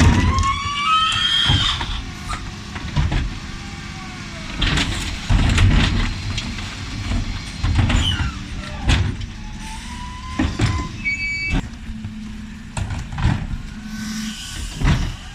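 Terberg OmniDEKA bin lifter on a Dennis Elite 6 refuse truck cycling wheelie bins. A rising hydraulic whine and squeal comes near the start, followed by repeated bangs and clatters of bins hitting the lift, with short squeals in between.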